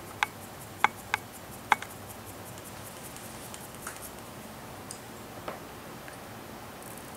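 Paper quilling strip being wound tightly by hand on a slotted quilling pen: four sharp clicks in the first two seconds, then a few fainter ticks as the coil is handled.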